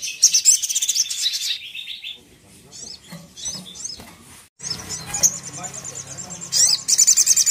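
Sunbird (sogon) singing: fast, high, buzzy trills and chattering. It is loudest in the first second and a half and again near the end, with softer chips in between.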